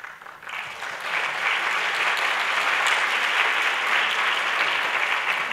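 Audience applauding, the clapping swelling over the first second and starting to die away near the end.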